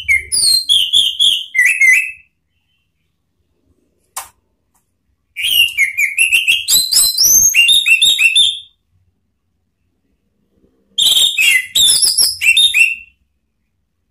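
An orange-headed thrush singing its full, open song (ngeplong). It sings three bouts of quick, varied whistled phrases with short pauses between them, and gives one short sharp note between the first two bouts.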